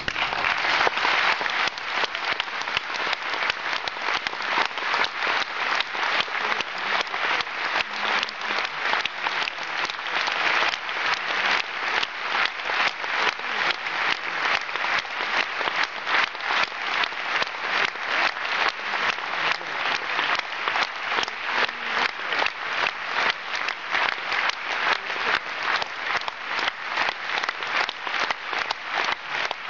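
Concert hall audience applauding, the clapping settling into a steady rhythmic beat in unison.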